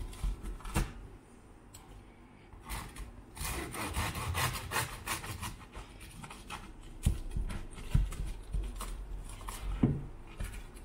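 Kitchen knife sawing through crispy grilled toast on a wooden cutting board: scratchy rasping strokes of the blade through the crust, with a few sharp knocks in the second half.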